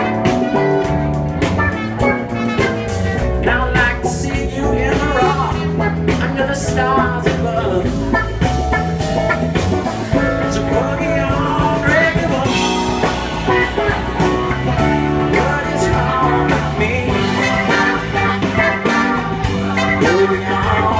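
Live band playing an amplified blues-rock number: electric guitars over bass and a steady drum beat, with a voice singing.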